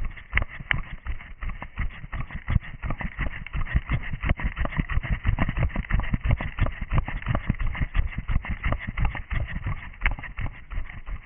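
A runner's footsteps and body movement picked up by a camera worn on the runner: a dense, uneven run of thuds and knocks, several a second, with rustling.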